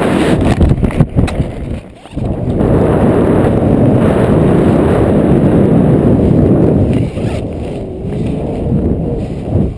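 Wind buffeting the camera's microphone during a parachute descent, a loud low rumble that drops out briefly about two seconds in.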